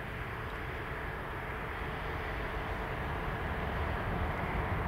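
Airbus A350-900's Rolls-Royce Trent XWB turbofans at climb thrust as the airliner climbs away. A steady jet rumble that slowly grows louder.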